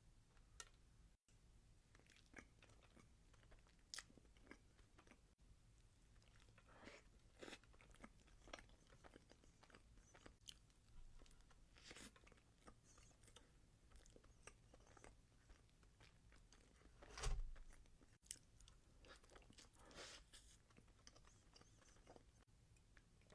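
Faint close-up eating sounds of someone eating cake: scattered soft mouth clicks and chewing smacks, with one louder dull thump about 17 seconds in.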